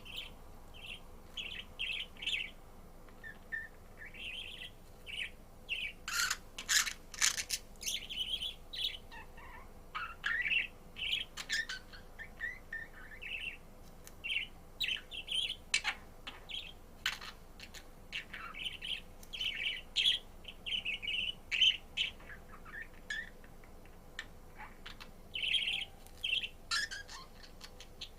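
Pet budgerigar chirping and warbling, a steady run of short varied chirps, with a few sharp clicks in between.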